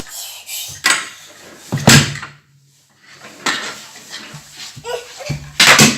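Toy cars clattering and knocking on a hard surface: several separate sharp knocks, with the loudest cluster near the end.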